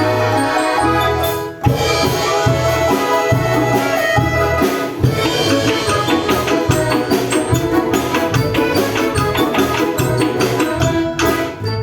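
Instrumental music with a steady drum beat, briefly dropping out about a second and a half in.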